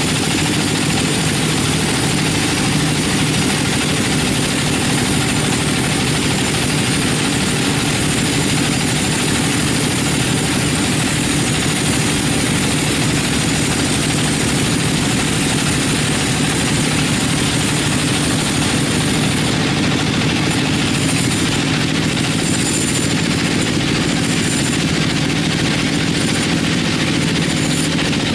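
42-inch sawmill bandsaw running steadily as its blade rips lengthwise through a teak log.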